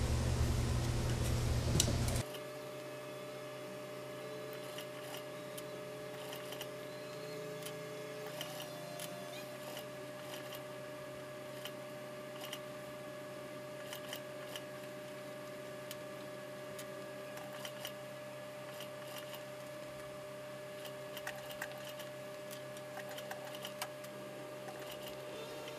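Industrial lockstitch sewing machine stitching a fur coat's sleeve seam, stopping abruptly about two seconds in. After that a faint steady hum remains, with scattered small clicks and taps as the fabric and tools are handled.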